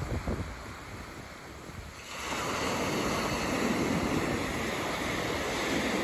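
Small waves breaking and washing up a sandy beach, with wind buffeting the microphone in the first moments. About two seconds in the surf's hiss becomes suddenly louder and fuller, then stays steady.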